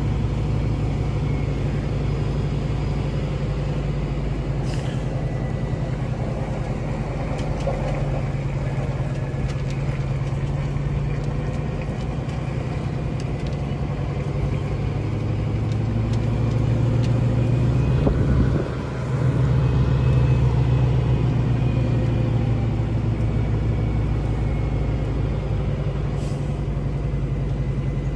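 Scania truck's diesel engine running steadily under a heavy 55-ton load, heard from inside the cab. About two-thirds of the way through the sound dips briefly, then the engine runs louder.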